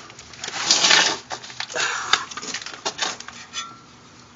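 Irregular rustling and scraping with light metallic clicks as a torque wrench and tools are handled under a car, settling down after about three and a half seconds.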